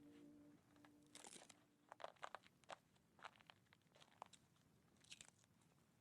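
Near silence: faint scattered clicks and crinkling noises, with the last held notes of background music dying away in the first second and a half.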